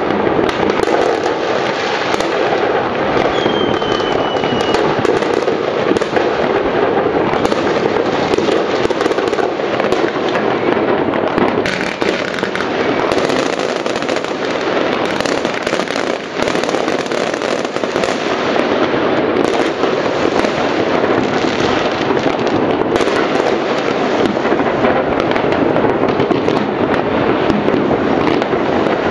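Dense, continuous crackling and popping of many fireworks and firecrackers going off all over the surrounding town at once, merging into one unbroken din. A short, slightly falling whistle sounds about three seconds in.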